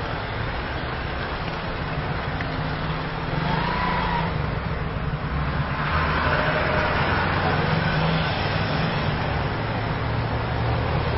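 Road traffic noise: car engines running close by with the hum of passing vehicles, getting louder a few seconds in.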